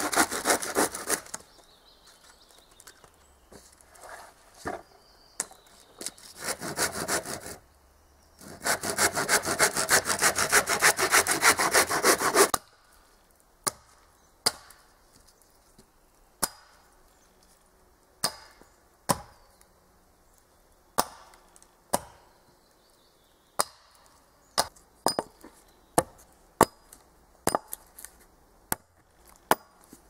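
Hand saw cutting through a thin wooden pole in quick back-and-forth strokes, in a short burst at the start and again in a longer run of about four seconds that stops suddenly. After that, single sharp wooden knocks every second or two.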